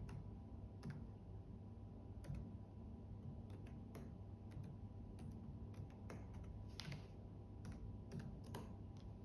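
Keys being pressed on a Lenovo T14 laptop keyboard while a password is typed: faint, irregularly spaced clicks.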